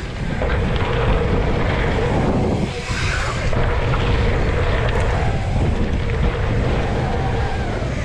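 Wind buffeting a helmet camera's microphone as a dirt jump bike rolls fast down a packed-dirt jump line, a steady rumble of rushing air and tyres on dirt.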